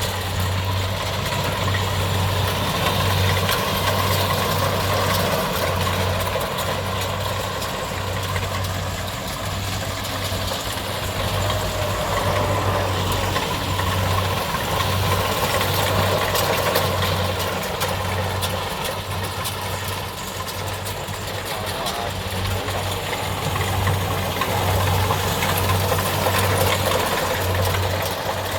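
Kubota DC70 combine harvester's diesel engine and threshing machinery running steadily at work in a rice field, with a low hum that pulses unevenly.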